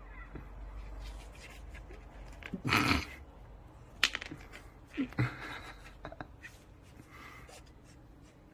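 Cat pawing and nosing under the edge of a fabric rug on a wooden floor: the cloth rustles and drags in a few short swishes, the loudest near the middle, with one sharp click about four seconds in.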